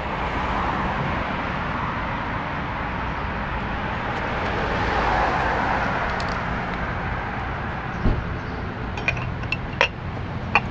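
Steady road traffic passing, swelling a little about halfway through. In the last couple of seconds a few light metallic clinks come from the chrome oil filter cover and its screws being handled at the engine.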